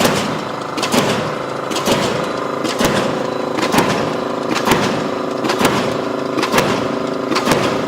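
Straight-hanger production machine for drywall framing running: a sharp stamping stroke about once a second over a steady motor hum as the strip is punched and cut into hangers.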